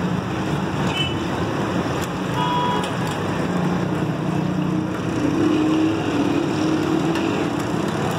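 Street traffic: motor vehicle engines running steadily, with one engine's note rising about five seconds in and short high tones near the start.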